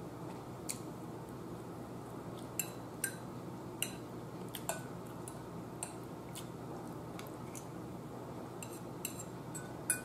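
Metal fork clinking against a ceramic bowl while food is picked up, about eight light clinks with a short ring, the loudest near the end, over a steady low room hum.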